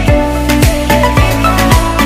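Background music with a steady beat: a deep kick drum that drops in pitch on each hit, about two a second, under sustained melodic notes.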